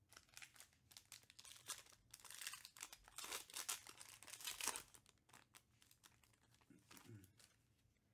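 A 2021 Panini Prizm UFC hobby pack's foil wrapper being torn open and crinkled by hand, crackling loudest from about two to five seconds in before dying away.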